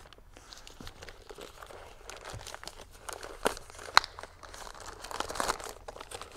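Plastic bag crinkling and rustling as a handheld remote controller is unwrapped from it and handled in a foam case, with two sharp clicks about three and a half and four seconds in.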